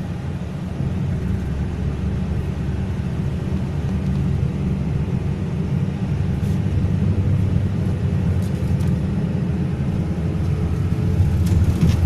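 Steady low rumble of a car on the move, engine and road noise heard from inside the cabin, growing slightly louder with a few faint ticks near the end.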